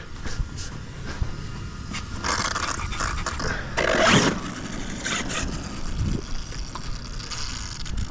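Radio-controlled car running on asphalt, with irregular scraping, rasping bursts, the loudest about four seconds in.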